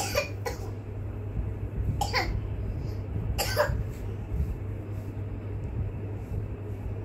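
A person's voice making four short, sharp vocal sounds, like coughs, in the first four seconds, over a steady low hum.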